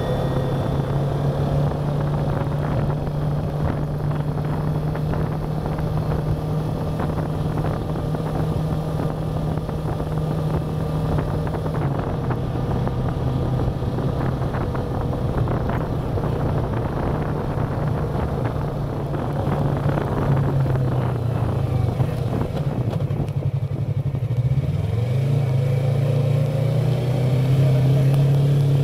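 Motorcycle engine running steadily under way, heard from the rider's seat. About twenty seconds in the engine note drops and wavers as the bike slows, then rises again as it pulls away.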